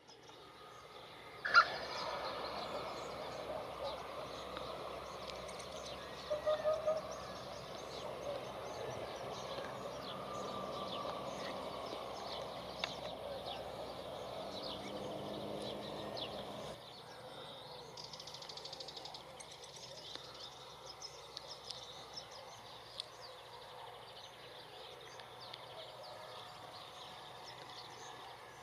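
Outdoor natural ambience: a steady background hiss with faint scattered bird calls. About a quarter of the way in comes a short series of four or so low, pulsed hooting notes. About two-thirds of the way through, the ambience drops abruptly to a quieter level.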